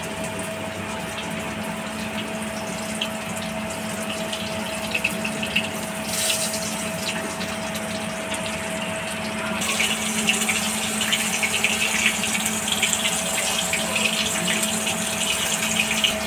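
Rice-flour-coated mandeli fish sizzling and crackling in hot oil in a shallow frying pan. The sizzle grows louder and busier about ten seconds in as more pieces go into the oil. A steady low hum runs underneath.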